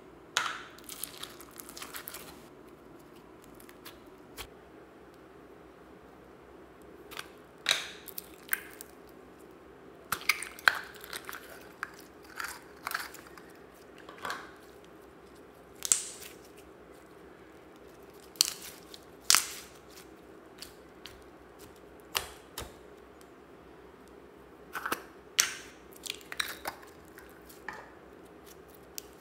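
Slime squished, pulled and dropped by hand into a tub of mixed slime: sticky, wet squelches and pops that come in scattered bursts with short quiet gaps between them.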